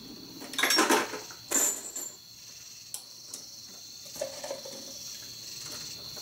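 Metallic clatter and clinking of .45 ACP brass and bullets being handled and worked through a Dillon RL 550B progressive reloading press. The loudest clatter comes about a second in, with lighter clicks after it.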